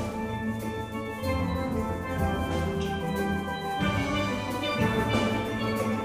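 A steel band playing: steel pans of several ranges ring out melody and chords over deep bass pans, with drum and cymbal strikes keeping the beat. The low notes drop out briefly about four seconds in, then come back.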